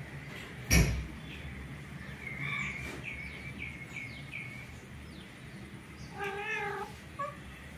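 A domestic cat gives one drawn-out, wavering meow lasting under a second, about six seconds in. Earlier there is a sharp thump just under a second in, then a run of about five short high chirps.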